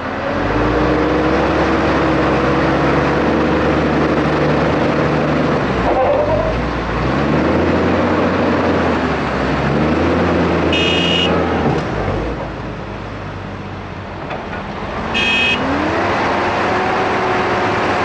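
Heavy diesel farm machinery, a forage harvester and a tractor with a silage trailer, running loudly with the engine pitch rising and falling several times as they rev up and down. A horn sounds briefly twice, about eleven and fifteen seconds in.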